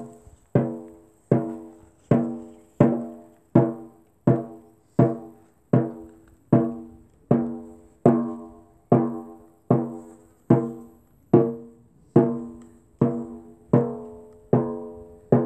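Hand-held frame drum beaten in a slow, even pulse, a little over one stroke a second. Each stroke rings out with a pitched boom and fades before the next.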